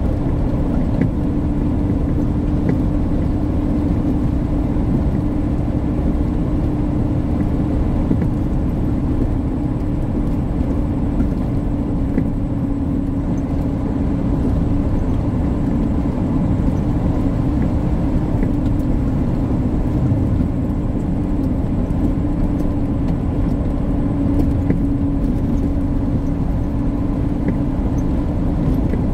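Tractor-trailer cab noise at highway cruising speed: a steady engine drone with low road and tyre rumble.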